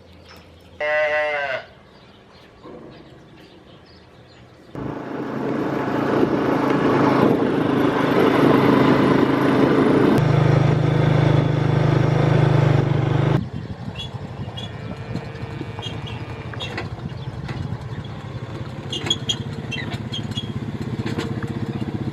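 A calf bawls once, briefly, about a second in. After a few seconds a small motor vehicle engine runs loudly for about eight seconds, its sound settling to a steady low hum partway through, then drops away.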